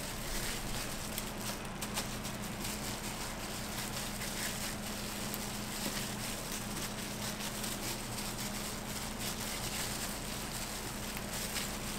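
Steady kitchen background noise: an even hiss over a constant low hum, with faint scattered small clicks and taps.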